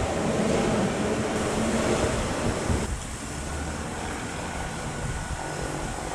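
Wind buffeting the microphone over a steady rushing background noise; it eases off about three seconds in.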